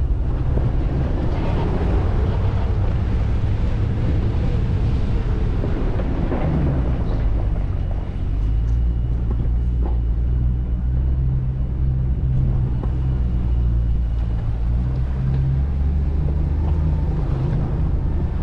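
Off-road vehicle driving slowly over a rough dirt and rock trail: a steady low engine and drivetrain rumble with a few light knocks, the rumble growing heavier about halfway through.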